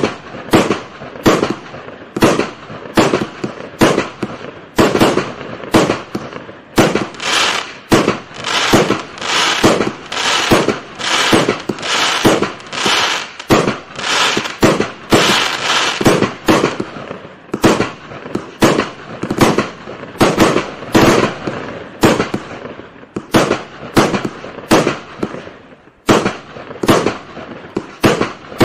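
A 300-shot, 25 mm fireworks cake firing a steady string of shots, about two a second. For a stretch in the middle the bangs are filled in with dense crackling.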